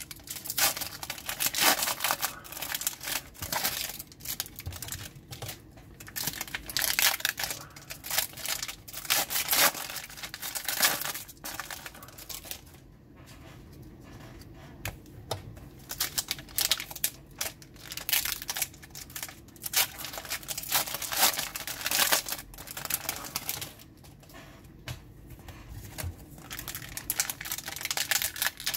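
Foil trading-card pack wrappers being torn open and crinkled by hand, in repeated bursts of crackling rustle. The handling eases off into quieter spells about halfway through and again about three-quarters of the way through.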